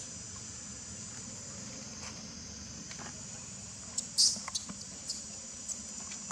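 Steady high-pitched insect chorus, with a few short rustles and crackles of dry leaves under a monkey moving and dragging its baby; the loudest is about four seconds in.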